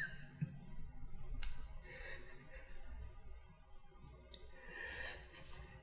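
Quiet room tone with a low hum and a few faint breaths.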